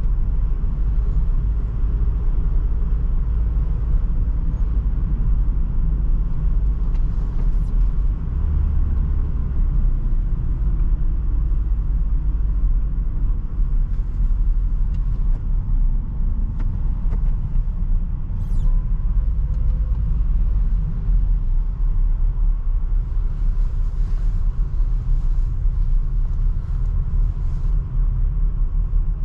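Renault Trafic van heard from inside the cabin while driving: a steady low rumble of engine and tyres on the road, with occasional faint clicks.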